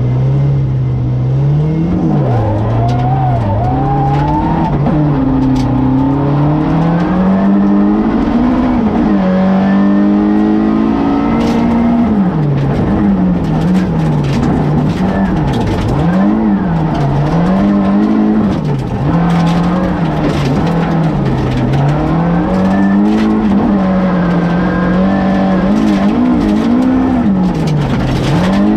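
Rally car engine heard from inside the cockpit, revving up and dropping back over and over through gear changes and lifts on a gravel stage, with scattered sharp clicks and knocks over it.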